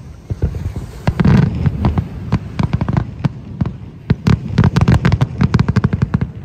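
Aerial fireworks shells bursting over the water in quick succession: a dense cluster of bangs about a second in, then a rapid run of sharp cracks and bangs, several a second, through the last couple of seconds.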